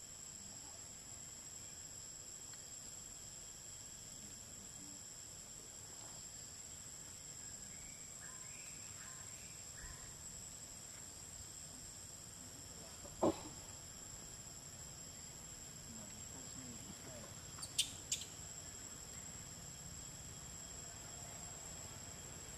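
Faint, steady shrill of insects in the trees, several high unchanging tones together. About halfway through a single sharp knock sounds, the loudest thing here, and two quick sharp clicks follow a few seconds later.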